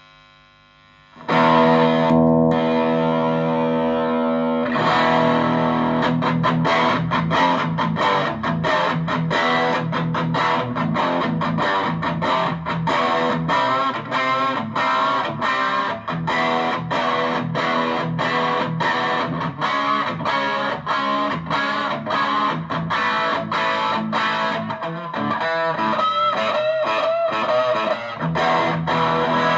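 Electric guitar played through a TC Electronic Dark Matter distortion pedal. A faint hum is followed, about a second in, by a loud distorted chord left ringing for a few seconds, then fast repeated picked riffing.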